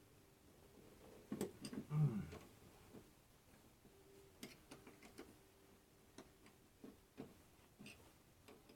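Scattered light clicks and taps of hand tools and metal fittings being handled, with a cluster of louder clicks and a clunk about two seconds in.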